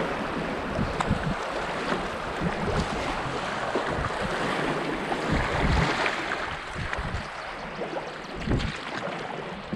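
Rapids rushing and churning around a canoe, swelling louder about six seconds in, with the splash of paddle strokes and wind buffeting the microphone.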